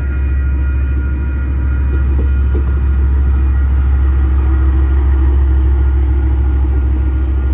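KiwiRail DL class diesel-electric locomotive running past at close range: a loud, deep, steady engine rumble that swells slightly over the first few seconds.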